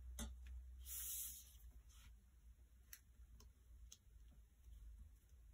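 Near silence with faint handling sounds of paper craftwork: a few light clicks and a short papery rustle about a second in, as paper pieces are handled and pressed down.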